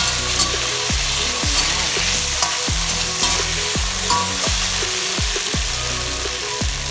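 Julienned carrots sizzling in oil and oyster sauce in a stainless steel wok, stirred with a metal slotted spatula that clicks and scrapes against the pan.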